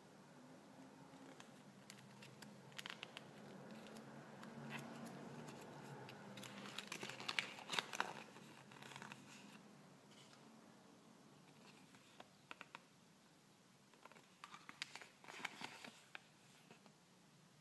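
Folded paper instruction leaflet from a Kinder Surprise egg being unfolded by hand, faintly crinkling and rustling in bursts, loudest about seven to eight seconds in and again near the end.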